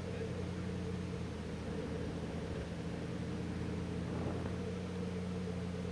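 An engine running at a steady speed: a constant low drone with an even hum that does not change.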